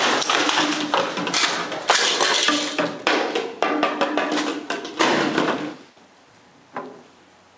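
A fast, irregular run of sharp knocks and bangs that dies away about six seconds in, with one last faint knock near the end.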